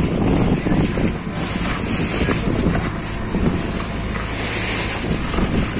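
Fishing boat's engine running under way, with water rushing past the hull and wind on the microphone.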